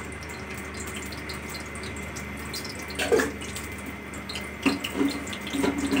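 Steady hiss from a gas stove heating oil in an open aluminium pressure cooker, with a few short louder sounds about three seconds in and near the end.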